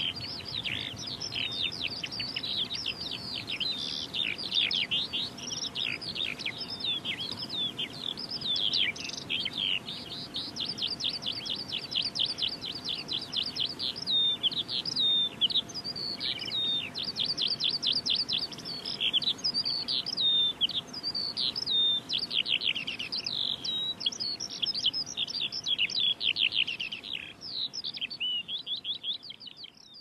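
Skylarks singing just after taking off: a loud, urgent, unbroken stream of rapid high chirps, trills and warbles that stops just before the end.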